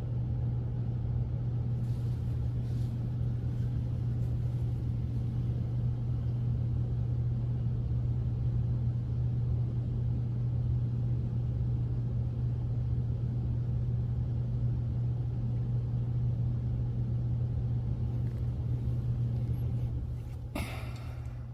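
A steady low hum. About twenty seconds in it drops away, with a brief clatter.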